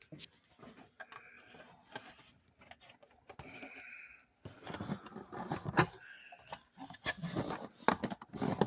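Plastic instrument-cluster parts being handled and snapped back together: irregular clicks, knocks and rubbing, busier in the second half.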